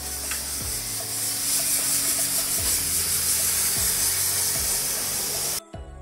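Pressurized water jet from a pressure-washer spray gun hissing into an air handling unit's cooling coil fins, washing out trapped dust; the spray cuts off suddenly near the end. Background music with a steady beat runs underneath.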